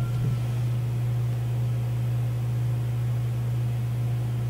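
A steady low hum with a faint hiss, the background noise of the narrator's microphone and room while nothing else sounds.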